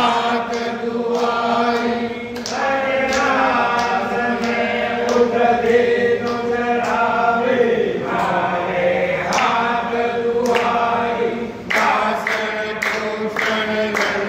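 A group of voices sings a devotional aarti chant together, with a steady beat of sharp strikes about twice a second.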